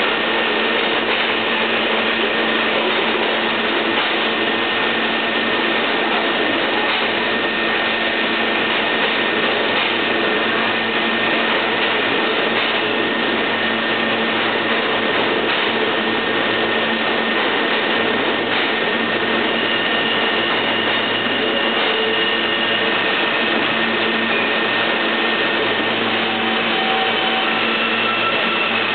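R160 subway train standing at the platform, its onboard equipment giving a loud steady hum with a thin steady whine that stops about two-thirds of the way through. In the last several seconds, new higher tones come in as the train gets ready to pull out.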